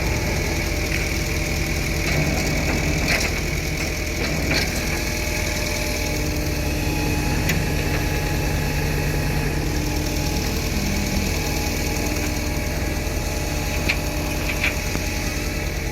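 Vehicle engine running steadily, with a few short, sharp clicks.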